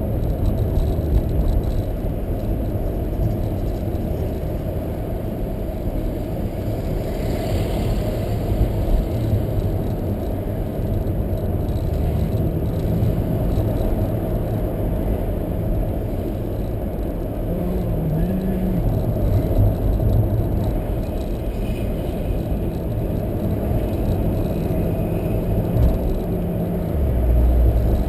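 Car engine and tyre road noise while driving, a steady low rumble, with the engine note shifting slightly about two-thirds of the way through.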